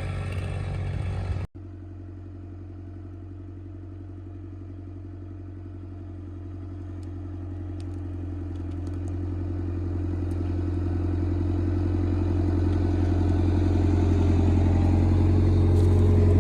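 A chainsaw running, which cuts off abruptly about a second and a half in. It is followed by an engine running at a steady speed that grows gradually louder.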